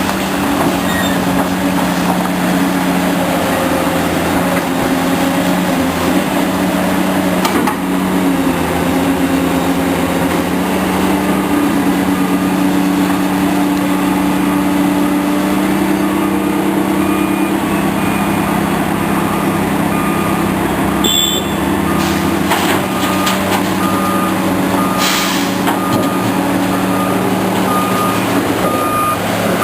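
Heavy construction machine's engine running under load, its pitch rising about halfway through. In the last seven seconds or so a backup alarm beeps steadily, roughly once a second.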